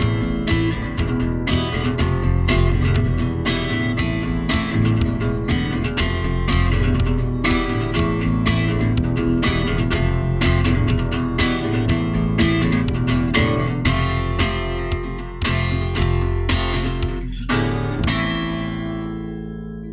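Instrumental music led by a strummed acoustic guitar over a low bass line, with chord strokes in an even rhythm. A last chord is struck about eighteen seconds in and rings out, fading.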